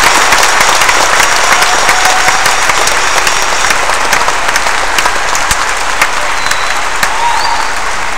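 Large audience applauding, the clapping slowly dying down.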